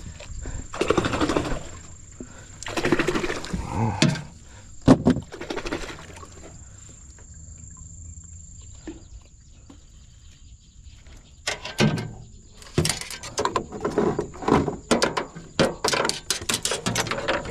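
Handling noises: rustles and a sharp knock in the first few seconds, then a quiet stretch, then a fast run of clicks and knocks from about twelve seconds in, over a faint steady high whine.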